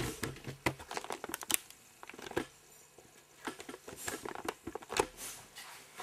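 Mail-order package being opened by hand: irregular crinkling and tearing of packaging with sharp clicks and taps, the loudest about a second and a half in and again near the end.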